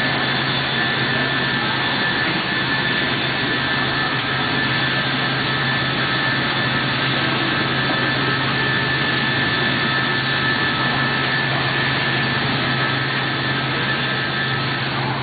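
Biesse Skipper 100 CNC panel boring machine running: a steady loud machine noise, a constant hum under a rush with thin high whining tones, unchanging throughout.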